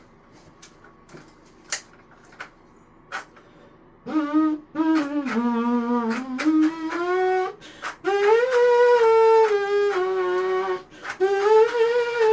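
A few faint clicks, then about four seconds in, an unsanded 3D-printed plastic rectangular trumpet starts playing: separate brassy notes that step up from a low note to higher ones, with short breaks between them.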